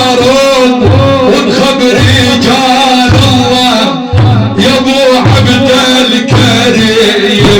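Middle Eastern instrumental music: a winding melody over a steady low beat.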